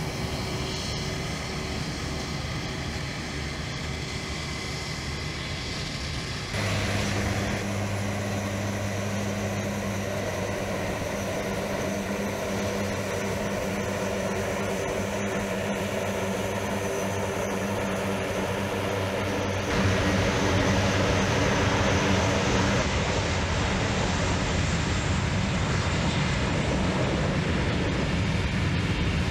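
Airliner engines at taxi power from an Airbus A321, mixed with the steady hum of other aircraft engines running on the airfield. The sound jumps louder suddenly about a quarter of the way in and again about two-thirds in.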